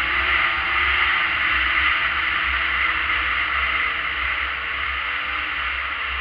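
Arctic Cat ZRT 600 snowmobile running at speed: its three-cylinder two-stroke engine and track under a steady rush of noise, easing off slightly towards the end.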